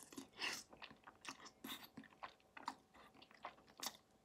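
A person chewing a mouthful of tomato-flavoured noodles: a faint, irregular string of wet smacks and clicks of the mouth.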